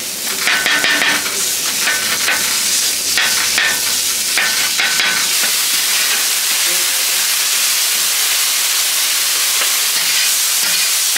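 A steady, loud hiss, with a few clicks and short tones in the first half.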